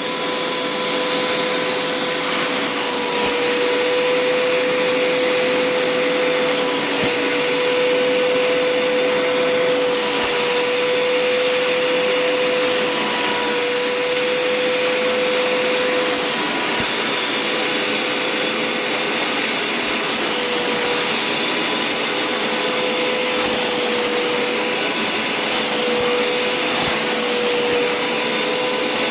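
Hoover Power Scrub Deluxe carpet cleaner running with its upholstery tool on suction: a steady motor hum and whine over the hiss of air being drawn in. The high part of the whine breaks off briefly every few seconds.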